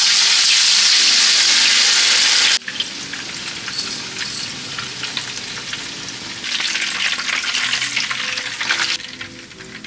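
Marinated pork chops frying in hot oil in a frying pan: a loud, even sizzle that cuts off suddenly about two and a half seconds in. It gives way to a quieter sizzle dotted with crackling pops of spitting oil, which drops lower again near the end.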